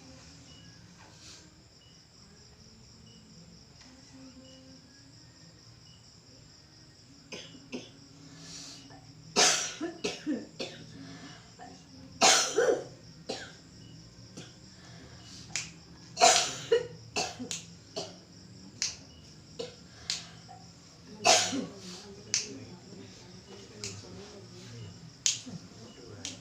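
A person coughing in a string of harsh, sudden coughs, starting about seven seconds in, the loudest about nine, twelve, sixteen and twenty-one seconds in, with smaller clicks and hacks between. Crickets chirp steadily in the background.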